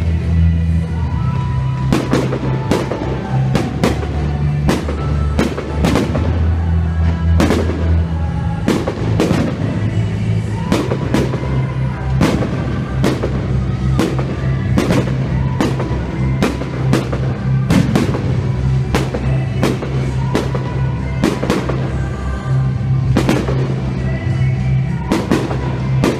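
Aerial firework shells bursting in quick, irregular succession, roughly one or two sharp bangs a second, over loud music with sustained bass notes.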